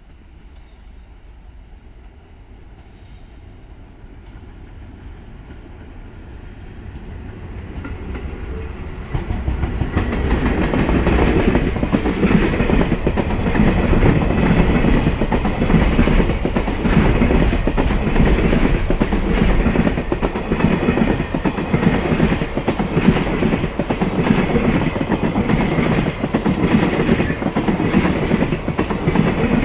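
An electric-locomotive-hauled freight train comes up faintly, then about nine seconds in passes close by loudly, its wheels clattering rhythmically over rail joints as the wagons go past.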